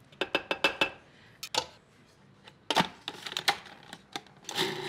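Sharp clicks and knocks of a metal measuring cup and the hard plastic bowl and lid of a food processor as flour goes in and the lid is fitted. Near the end the food processor's motor starts with a steady hum, mixing the flour with finely ground toasted pecans.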